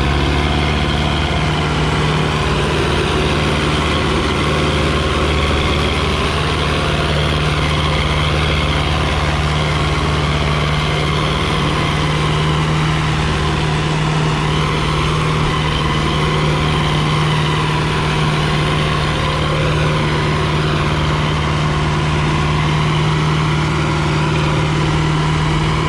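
Sonalika DI-750 III tractor's diesel engine running steadily under heavy load, pulling a trolley loaded with sand through soft ground.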